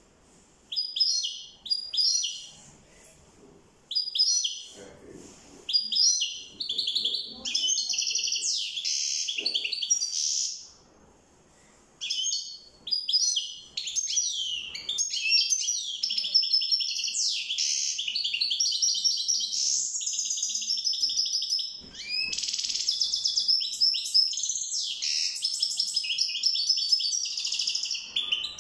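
Caged European goldfinch singing: a few short separate twittering calls at first, then long runs of rapid, tinkling twittering song, broken by two brief pauses.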